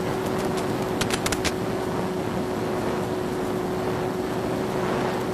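FPV drone's motors running steadily, a constant whine over rushing wind and propeller noise, with a few sharp clicks about a second in.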